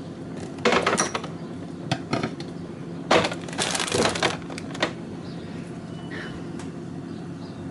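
Food packaging and plastic containers being handled in a fridge: crinkling and clattering in two bursts, about a second in and again around three to four seconds in, with a few sharp clicks. A steady low hum runs underneath.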